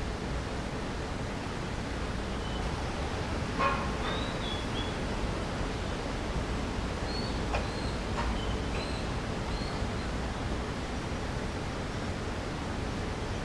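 Steady outdoor background hiss, with a few short high chirps from small birds scattered through it and a sharper chirp about three and a half seconds in.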